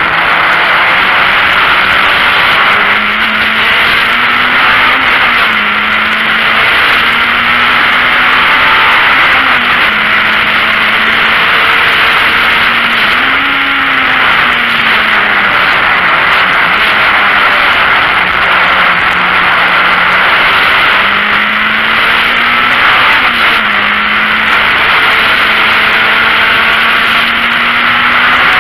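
VW Golf Mk1 race car's four-cylinder engine running hard, heard from inside the cabin under loud wind and road noise. Its pitch climbs and falls several times as the car is driven through the gears and corners, dropping lowest in the middle and steadying near the end.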